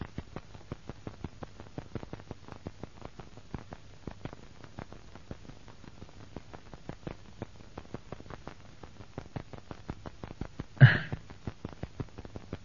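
Faint crackle and clicking of a worn old film soundtrack over a low hum, with one short louder sound near the end.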